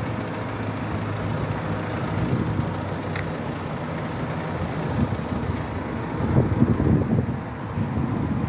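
Road traffic on a dual carriageway: a steady rumble of passing vehicles, growing louder from about six seconds in as a vehicle goes by.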